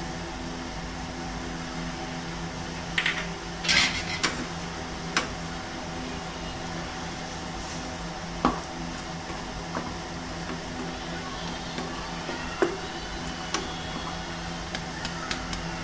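A cooking utensil knocks and scrapes against a pan of simmering beef spleen curry, giving a few sharp clicks spaced irregularly, most of them grouped a few seconds in. A steady low hum runs underneath.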